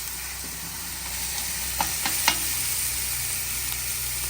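Pumpkin curry frying in a pot, a steady sizzle, with two short knocks about two seconds in.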